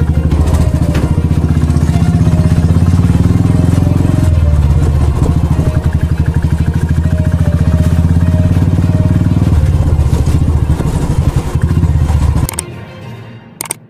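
Motorcycle engine running steadily with a deep, rapid beat. It cuts off about twelve and a half seconds in, followed by a short sharp swish near the end.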